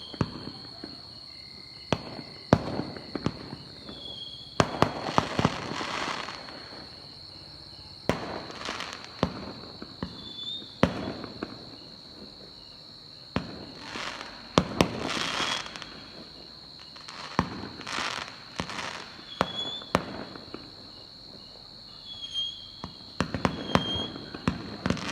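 Fireworks going off: sharp single bangs at irregular intervals, with several stretches of dense crackling bursts lasting a second or two each.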